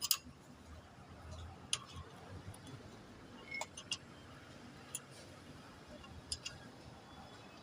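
Scattered sharp clicks and light clinks, about seven spread irregularly over several seconds, typical of hand tools and metal parts being handled during engine work.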